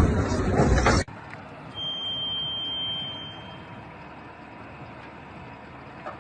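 Loud rough noise that cuts off suddenly about a second in. Then, over a quiet low hum, a single steady high-pitched electronic beep lasts about a second and a half.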